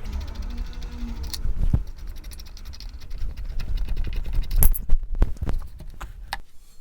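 Hand tools working on a motorcycle's Brembo front brake caliper as it is unbolted: rapid clicking in the first second or so, then a few sharp metallic knocks, the loudest about five seconds in.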